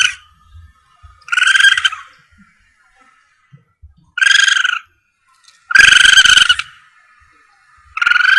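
Recorded civet calls played as a hunting lure: a harsh, pitched screech repeated four times, each about half a second to a second long, with pauses of one to two seconds between them. The last call is still sounding at the end.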